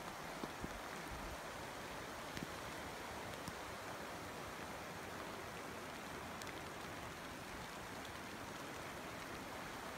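Steady rain falling, an even hiss with a few scattered sharp taps.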